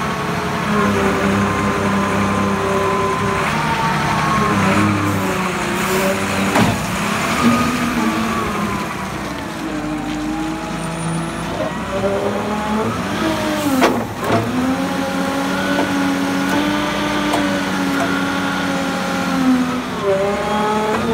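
Engine of a 1985 Kalmar LMV DB13.6-600 forklift truck running, its pitch rising and falling as it is driven and worked. Two brief sharp sounds come about a third and two-thirds of the way through.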